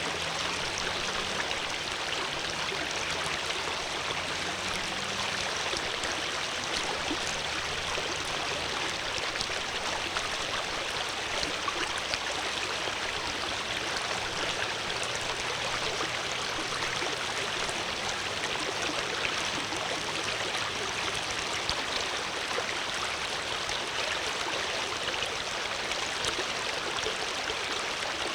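Water flowing in a stream: a steady, even rush of running water.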